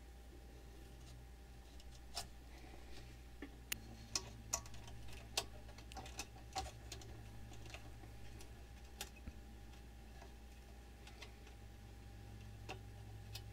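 Faint, irregular small clicks and taps of wire and component leads being handled and bent against a metal amplifier chassis, over a steady low hum.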